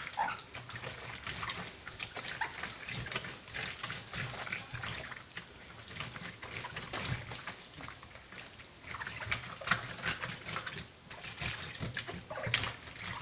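Wet, torn paper being scrubbed by hand against a ridged washboard in a basin of water, a continuous run of small squelches, scrapes and splashes as the paper breaks down into papier-mâché pulp.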